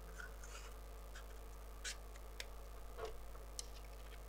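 Light clicks and taps of an 18650 lithium-ion cell and an aluminium power-bank tube being handled and fitted together, a handful of separate clicks with the loudest about two and three seconds in.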